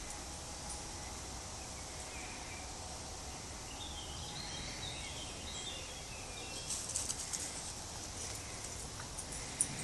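Woodland ambience: a steady hiss with a small bird chirping in a quick warbling run around the middle. A cluster of sharp light crackles comes about seven seconds in, and more start near the end.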